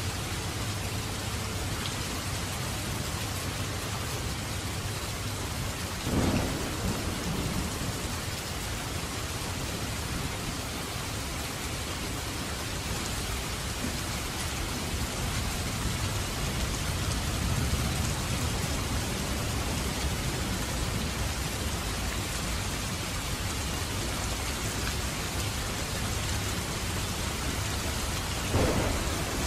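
Steady heavy rain, with a low rumble underneath and two brief louder bursts, one about six seconds in and one near the end.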